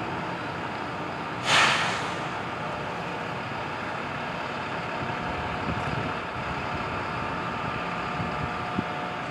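Standing locomotives humming steadily with a held whine of several tones, and a short, loud hiss of released air from the air brakes about a second and a half in.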